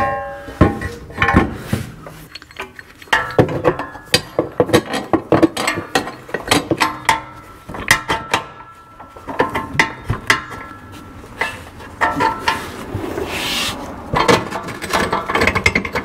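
Steel SMR subframe connector being worked by hand into place under a car's floor, knocking and scraping against the underbody and frame at irregular intervals as its bent mounting tab is lined up with the frame hole.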